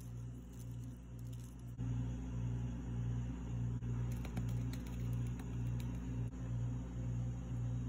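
A steady low mechanical hum that pulses about twice a second and gets louder about two seconds in. Midway, a few light clicks of a metal spoon as sauce is spooned onto fried chicken.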